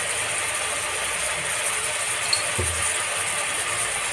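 Mutton pieces with turmeric and spices sizzling and bubbling in oil in an open aluminium pressure cooker, a steady hiss. A light click and a soft knock come just past halfway.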